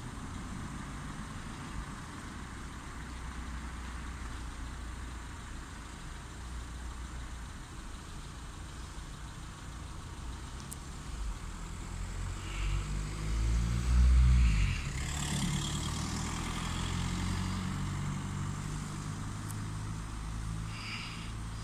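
Steady low traffic rumble, with a car driving past a little over halfway in, its engine and tyres rising to a peak and then fading.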